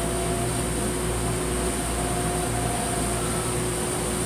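Motor yacht's engines running steadily while under way, a constant drone with a steady hum.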